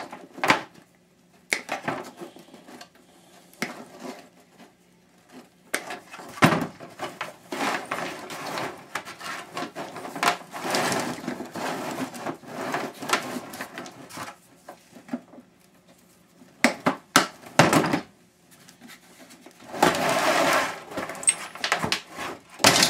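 A power washer's long electrical cord being cut and handled: sharp snips and knocks scattered through, with longer stretches of rustling and scraping as the cord is pulled and gathered.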